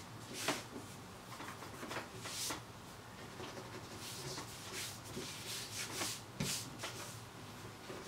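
A hand brushing and rubbing across a plastic cutting mat, gathering up snipped-off bits of component lead, with scattered light rustles and small clicks.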